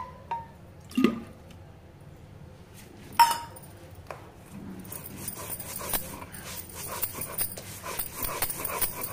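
Spice paste being ground on a sil-batta: the stone roller is rubbed back and forth over the stone slab, scraping continuously from about five seconds in. Before that come a few knocks and one sharp ringing clink.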